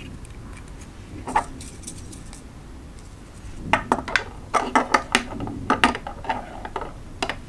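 Diamond painting pens clicking and tapping as they are handled and laid down on a wooden table: one click about a second in, then a quick run of small clicks and knocks in the second half.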